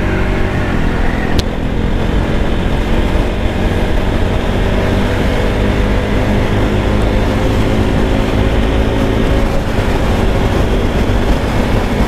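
Bajaj Pulsar NS200's single-cylinder engine running at a steady cruising speed while the motorcycle rides along, its pitch holding nearly constant, with wind rushing over the microphone.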